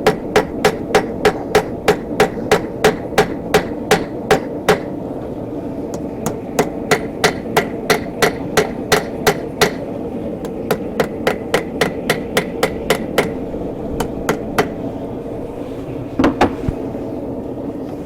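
Blacksmith's hammer striking a hot steel bar on the anvil, forging its end. The blows come about three a second in runs with short pauses between, thinning to a few single blows near the end.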